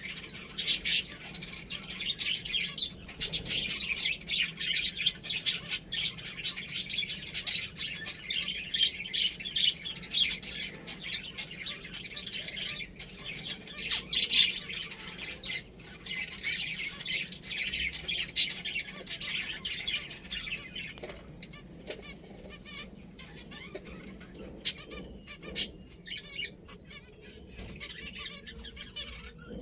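A group of pet finches chirping and chattering busily. The chatter thins out about two-thirds of the way through, leaving scattered chirps and sharp clicks.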